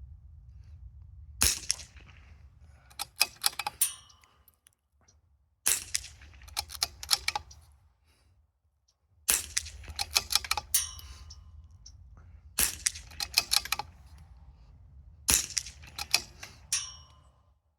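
Five .22 rimfire shots from a bolt-action Vudoo 360 rifle with an EC tuner, fired one at a time about three to four seconds apart. Each shot is followed by a quick run of metallic clicks as the bolt is worked for the next round.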